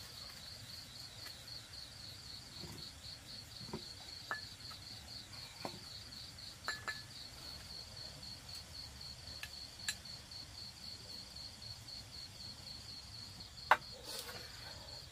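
Crickets chirping in a steady, fast-pulsing high trill. Scattered light clicks of chopsticks against porcelain bowls and a metal tray come through it, the sharpest one near the end.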